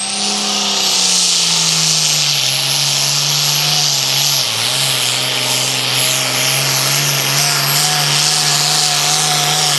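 Turbocharged diesel engine of an International super farm pulling tractor running at full throttle under load as it drags the sled, with a high turbo whistle that climbs during the first second and then holds steady. The engine note sags briefly about four and a half seconds in.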